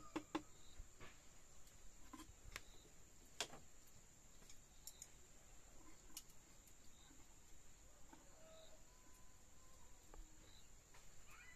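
Near silence with a faint, steady, high-pitched insect trill, like a cricket, and scattered light clicks and taps.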